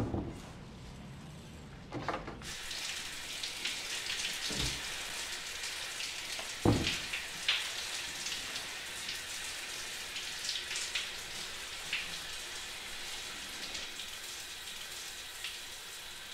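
Water spraying from a handheld shower head, a steady hiss that starts about two and a half seconds in. A few dull thumps fall over the first seven seconds, the loudest about a third of the way through.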